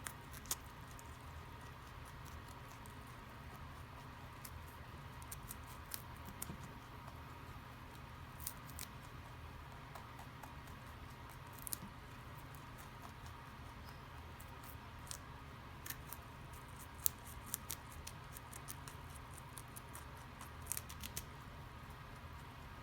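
Rabbit chewing a crisp cabbage leaf: faint, irregular little crunches and snips over a steady low background hiss.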